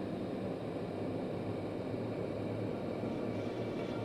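Subway station ambience: a steady low rumble and hiss with no distinct events. Faint music starts to come in near the end.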